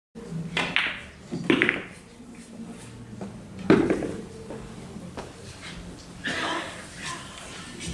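Pool balls clacking: several sharp clicks of the cue on the cue ball and of balls knocking together, the loudest a little under four seconds in, over a low murmur of voices.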